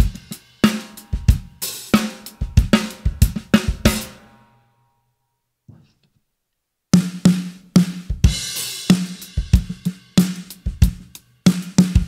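Drum kit groove of bass drum, hi-hat and a low-tuned 14x6.5 Gretsch Full Range walnut snare, the snare muffled by a cover laid across its head. The playing stops about four and a half seconds in and starts again after a pause of about two and a half seconds.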